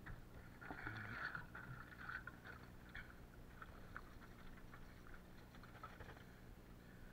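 Faint water sloshing and splashing as a large plastic water jug is tipped to water a plant, loudest in the first couple of seconds, followed by a few small scattered clicks.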